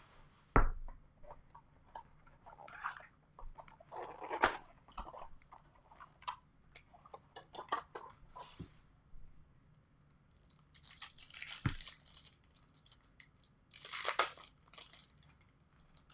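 Wrapping being torn and crinkled as a box of sports cards and its foil packs are opened, with light handling noises. Two sharp knocks, one just after the start and one about two-thirds of the way through.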